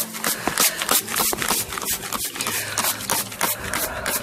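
Hands handling a package of honey bees: a rapid, irregular run of small scrapes and taps over a faint low steady hum.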